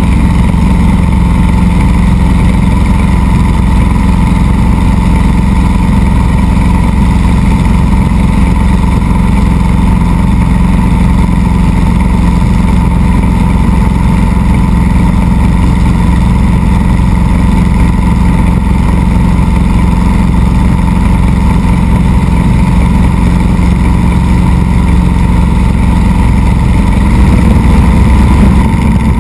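Helicopter turbine and rotor running at a loud, steady pitch, picked up by a camera mounted down by the skid. About 27 seconds in, the sound grows louder and rises slightly in pitch as power comes up for liftoff.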